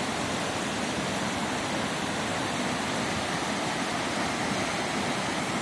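Waterfall rushing: a steady, even roar of falling water with no break.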